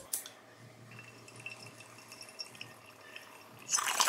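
Glass water bong drawn on: faint bubbling of water in the base as smoke is pulled through. Near the end comes a short, louder rush of air as the bowl is pulled and the chamber is cleared.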